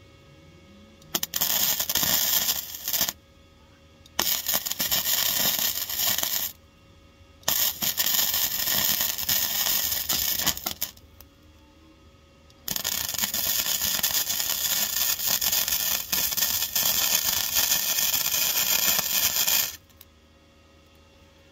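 MIG welder arc crackling as it lays four runs of weld on a car's rear floor pan, the last and longest about seven seconds, each stopping abruptly with short pauses between.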